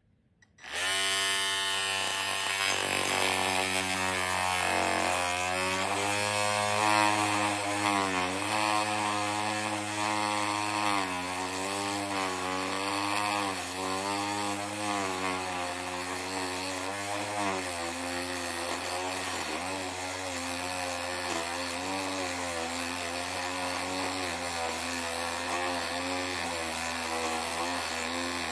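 Electric power tool with a ceramic-tile removal blade starting up about a second in, then running continuously. Its pitch wavers and dips again and again, as the motor is loaded and eased.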